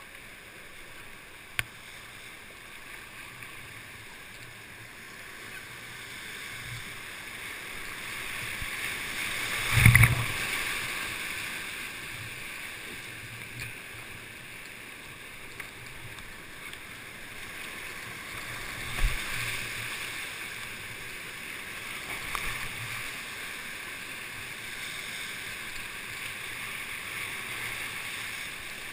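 Class V whitewater rapid rushing and churning around a kayak, a steady hiss of fast water. Two loud thumps break through, about ten seconds in and again about nine seconds later.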